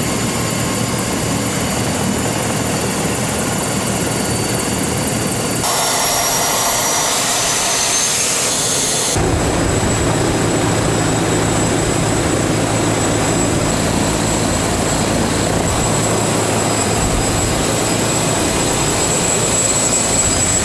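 TAI/AgustaWestland T129 attack helicopter running on the ground with its rotors turning: a loud, steady high-pitched turbine whine. A few seconds in, the whine rises in pitch for about three seconds, then gives way to a heavier, lower sound.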